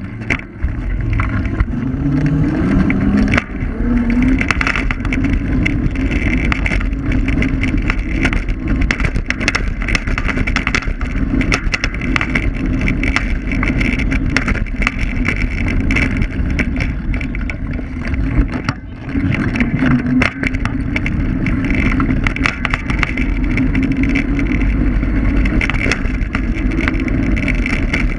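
Electric scooter ride heard from a low-mounted camera: steady road and tyre rumble over rough asphalt with frequent clicks and knocks from bumps, and an electric motor hum that rises in pitch in the first few seconds and wavers with speed. The rumble dips briefly a little past halfway.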